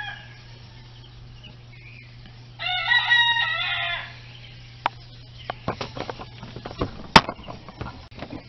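A rooster crows once, a single call of about a second and a half starting nearly three seconds in, over a steady low hum. Scattered clicks and knocks follow in the second half.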